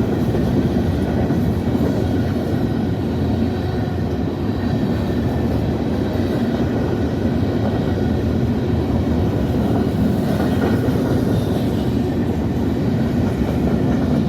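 CSX grain train rolling past: a loud, steady rumble of freight-car wheels on the rails.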